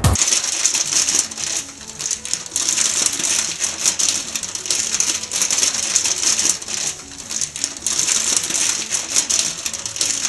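Steady, dense crackling: many small irregular ticks over a high hiss.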